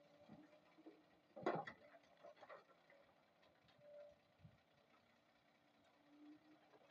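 Near silence, with a faint sharp knock about a second and a half in and a weaker one about a second later.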